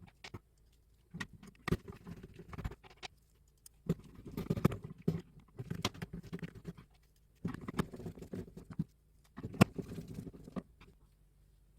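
Hands working with small parts: bursts of scratching, clicking and light rattling, each a second or so long, with short pauses between.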